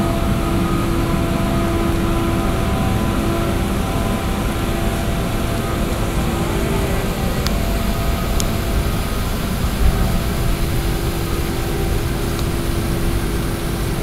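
Heavy diesel engine of a Liebherr HS 855 crawler crane running steadily under load, with a constant whine over the low rumble while its diaphragm-wall grab is worked. Two brief sharp clicks in the middle.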